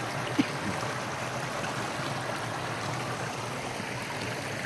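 Brook water flowing steadily with a strong current, a continuous even rush; a single short click about half a second in.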